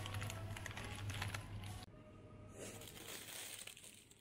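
Faint shop ambience: a low steady hum with light rustling, dropping quieter about two seconds in.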